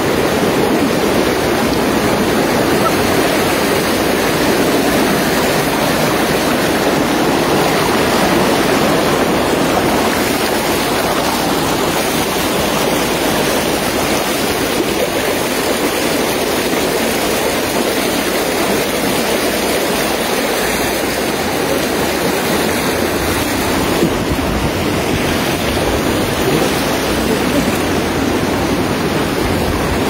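Water rushing steadily in a shallow channel, a constant even noise that does not let up.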